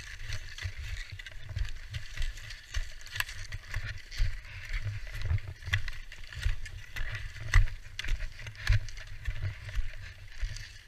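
Skis scraping and chattering over packed snow on a descent, with wind rumbling on the camera microphone and many irregular knocks.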